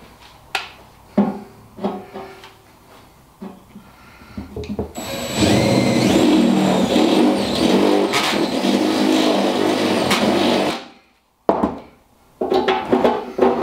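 A few light knocks and clicks, then about five seconds in a cordless DeWalt drill with a step drill (cone cutter) cuts through the steel lid of an ammo box with a loud grinding noise for about six seconds, stopping suddenly; one knock follows.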